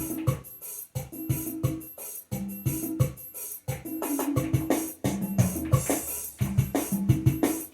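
Yamaha PSR-SX600 arranger keyboard playing with its stock built-in sounds: a drum-and-bass accompaniment rhythm with keyboard chords, broken by several short pauses.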